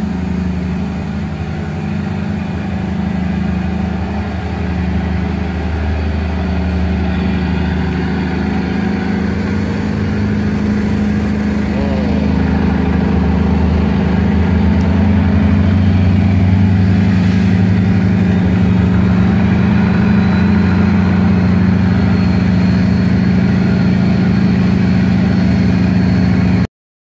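Diesel train engine running steadily at idle, a low hum that grows somewhat louder and cuts off suddenly near the end.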